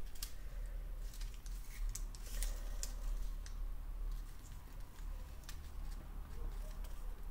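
Washi tape being handled and pressed down onto a paper planner page: scattered small crinkles and ticks over a low steady hum.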